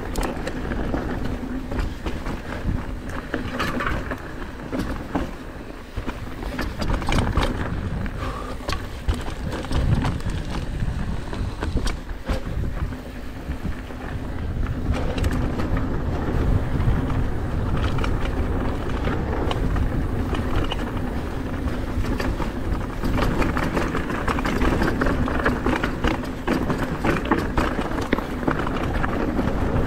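Canyon Torque AL full-suspension mountain bike descending a rough dirt downhill trail, heard from the rider's chest: tyres rumbling over dirt and rocks, with frequent clicks and knocks as the bike rattles over the ground.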